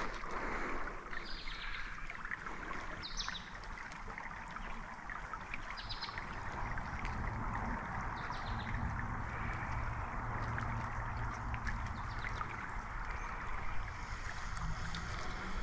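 Creek water running steadily, with a few brief high chirps over it and a low rumble that grows stronger about halfway through.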